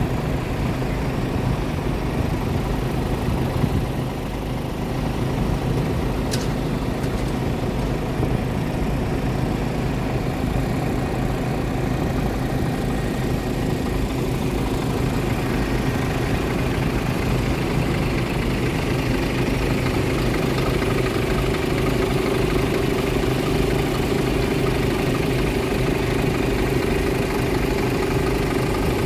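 Heavy fire trucks' diesel engines idling steadily, a low rumble; a higher hum strengthens about two-thirds of the way through.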